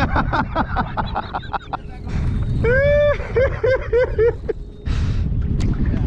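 Wind buffeting the microphone, with a quick run of laughter in the first second or so. Just before halfway comes a high call, one long note then four short ones.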